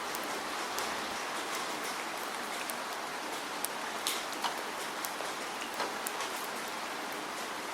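Steady rain with individual drops ticking sharply and irregularly over the even hiss of the downpour.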